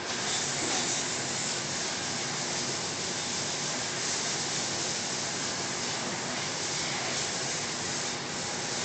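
Glaze spray hissing steadily inside the spray hood of an automatic ceramic plate glazing machine as a plate is sprayed, over the steady noise of the machine's conveyor and motors.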